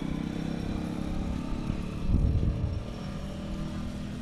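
A motor vehicle engine running steadily, with a louder low rumble about two seconds in.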